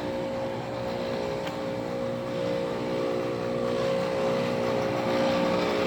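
1997 Ruud central air conditioner outdoor unit running, a loud steady hum with a constant tone over a rushing noise. The owner calls the unit done: it is so loud and barely cools.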